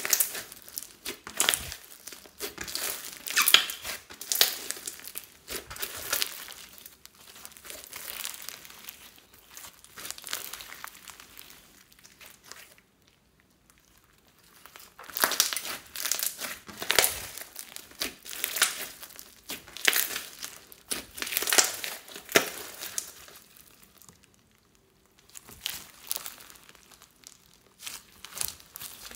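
Clear slime packed with beads and foam balls being squeezed, pressed and stretched by hand, giving off bursts of rapid sticky clicks. There is a quiet pause about halfway through.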